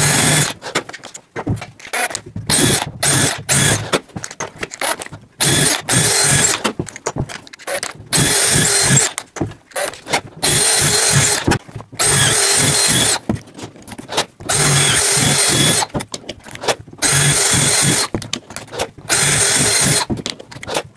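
Festool cordless drill with twist drill bits boring holes into softwood, laminated chipboard and hardwood, running in a rapid series of short stop-start bursts of a steady motor whine, the longest about a second and a half.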